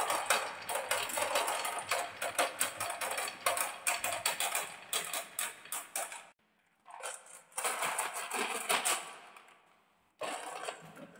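Many marbles rolling down a wooden zigzag marble-run track in a continuous stream of rapid clicks and clacks, dropping into a plastic toy truck bed. After a short break about six seconds in, the marbles clatter again in the truck bed as it is moved by hand.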